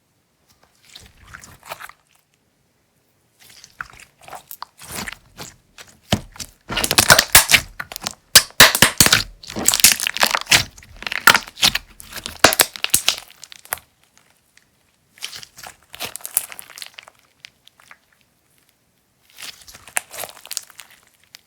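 Slime being pressed and squeezed by hand, giving dense runs of crackles and crunches in several bursts, loudest in the middle, with short pauses between handfuls.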